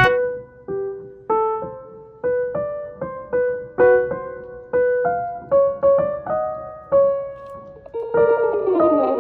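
Background piano music: a gentle melody of single notes, about two a second, ending in a falling run of notes near the end.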